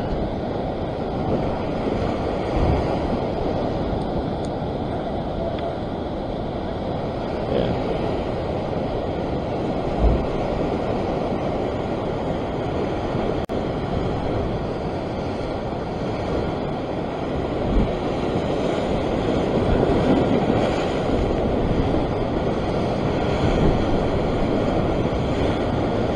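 Ocean surf surging and breaking against a sandstone rock shelf: a steady wash with a few heavier low thumps, and wind buffeting the microphone.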